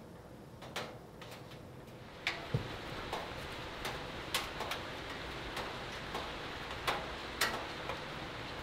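Wood fire burning in a glass-fronted wood stove, crackling with scattered sharp pops at irregular intervals over a steady hiss that grows a little louder about two seconds in.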